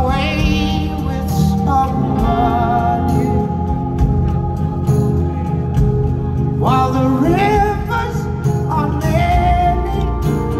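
Live band playing a rock song with a male lead vocal singing over it, loud and steady, heard from within the crowd.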